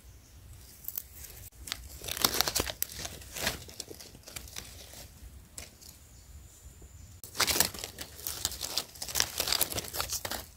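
Dry fallen leaves rustling and crackling as hands and a knife push through forest leaf litter. It comes in two spells, from about a second in to about four seconds, and again from about seven seconds to near the end.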